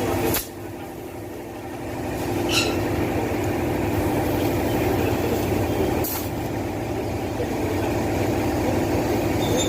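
Tubeless motorcycle tyre being inflated from a shop air compressor, which gives a steady hum that dips just after the start and builds again. Three sharp snaps spread through it as the tyre's bead pops into its seat on the rim.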